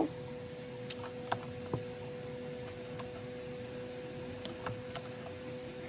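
Light scattered clicks and taps of photocards being handled, flipped through a hand-held stack and set down on a wooden table, about eight small ticks spread irregularly, over a steady faint hum.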